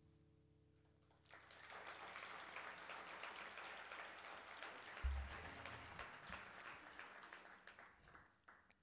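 Audience applauding after an acoustic guitar song, starting about a second in and dying away near the end. A single low thump sounds about halfway through.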